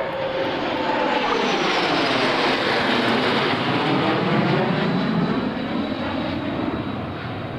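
Jet roar of a formation of three F-16 Fighting Falcons flying past. It builds over the first second or two, then fades near the end, its pitch sliding down as they pass.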